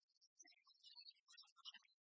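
Near silence, with only faint, scattered blips of sound.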